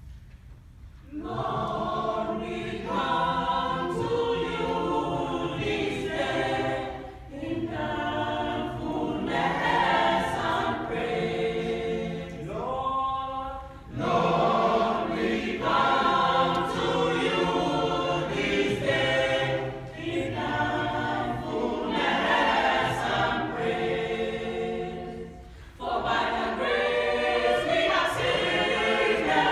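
Mixed choir of male and female voices singing, coming in about a second in and going on in phrases with short breaks between them.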